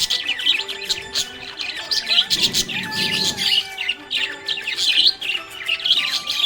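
Budgerigars chirping and warbling, a steady stream of quick chirps and short twittering glides.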